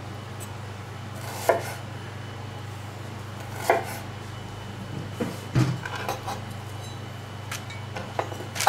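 Chef's knife slicing an onion on a wooden cutting board: two sharp knocks of the blade against the board about two seconds apart, then a run of lighter clicks and taps. A steady low hum underneath.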